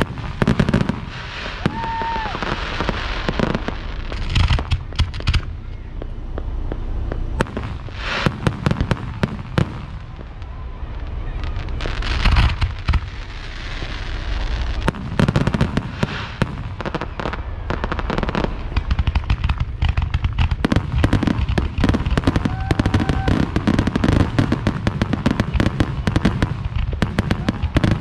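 Fireworks display: aerial shells launching and bursting in a series of booms, giving way about halfway through to dense crackling that becomes nearly continuous near the end.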